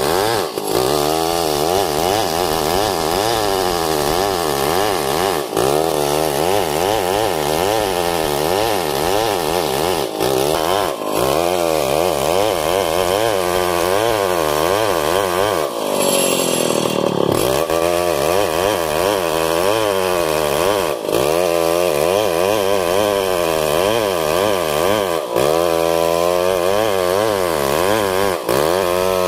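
Stihl 070 large two-stroke chainsaw running under load, ripping a long log lengthwise into beams. The engine note wavers as it cuts. About sixteen seconds in, the revs drop sharply, then climb back.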